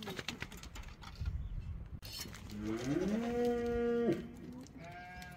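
Goats bleating: a long, low call that rises and then holds steady for over a second, about two and a half seconds in, then a short, higher call near the end. Scattered light clicks and rustles in the first two seconds.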